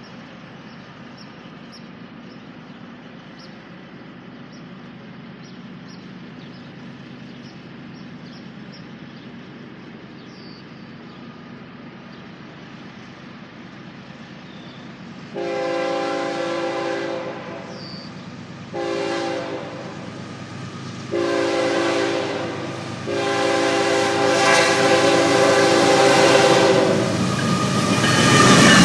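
The lead locomotive, a CN GE ES44AC, sounds its multi-note air horn in four blasts for the grade crossing: long, short, long, then a last long one. The train grows steadily louder as it approaches. Near the end the locomotive passes close by with a loud rush of engine and wheel noise.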